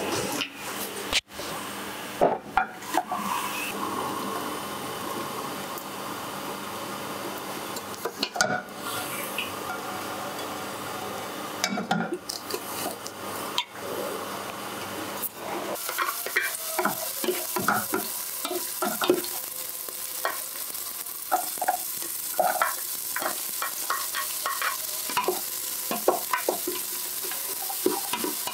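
Hot oil sizzling and crackling in an aluminium pressure-cooker pot over a gas burner, starting about halfway through, with a spatula clicking and scraping against the pot as it is stirred. Before that, a gas flame hisses faintly under scattered knocks of the pot being handled.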